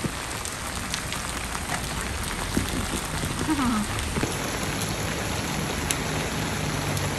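Heavy rain falling steadily on umbrellas and the wet pavement, a constant hiss with a few louder drops tapping.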